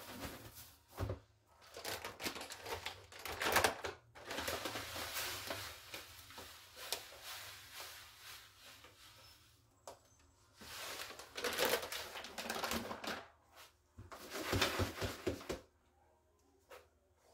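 Cat litter poured from a plastic bag into a plastic litter box: a rattling hiss of granules hitting plastic, one long pour and then a few shorter ones. Before it, a few knocks as the plastic box is handled and set in place.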